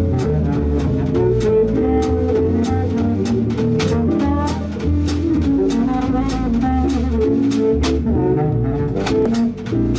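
Live jazz from a small band: a saxophone solo over drums, with steady, evenly spaced cymbal strokes keeping time.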